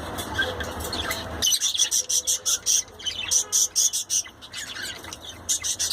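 Budgerigar chirping in a quick run of short, high chirps, busier and louder from about a second and a half in.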